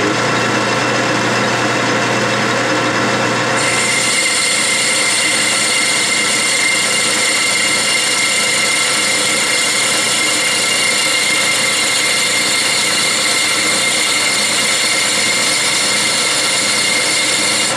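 Clausing metal lathe running steadily at about 600 rpm while a lathe tool takes a power-fed turning cut on a brass bushing. About three and a half seconds in, the cutting noise gets louder and a high steady ring joins it, and both hold steady after that.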